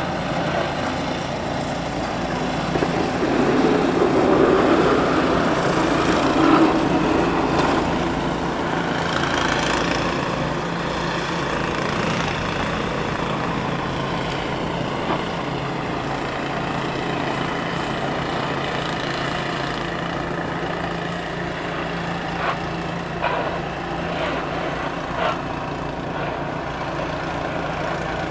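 Ram 3500 plow truck's engine running steadily as it works the street with its front plow blade, louder for a few seconds near the start, with a few light clicks near the end.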